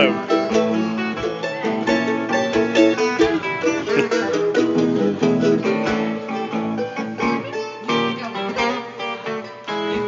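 Live string-band music: a mandolin takes a solo of quick picked notes over electric guitar accompaniment.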